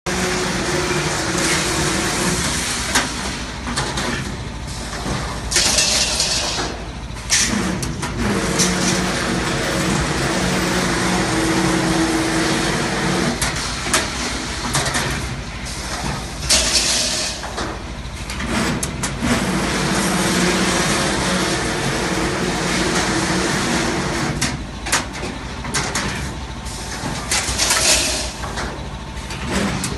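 CNC rebar bending machine working through repeated cycles: a motor hum in long stretches, with clicks and knocks, and a short burst of hiss about every eleven seconds.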